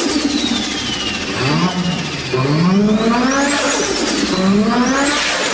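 Turbocharged Nissan Skyline R34 engine revved twice. Each time the turbo whine climbs with the revs, then falls away as the throttle closes, with the turbo flutter ('ffftuuu') of the spinning turbo on lift-off.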